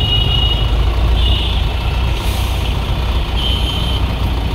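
Steady low engine rumble heard from inside a moving vehicle in city traffic, with two short high-pitched beeps of a horn or reversing alarm, about a second in and again near the end.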